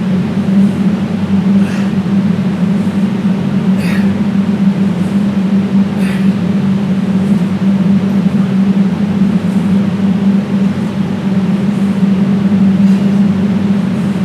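Loud, steady low hum on one pitch, with a faint click repeating about once a second.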